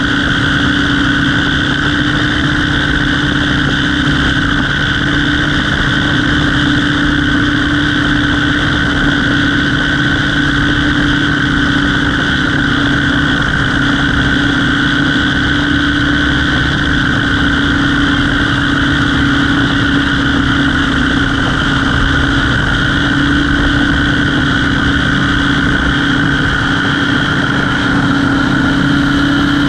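Aircraft engine running steadily at a constant speed, a continuous drone with no change in pitch.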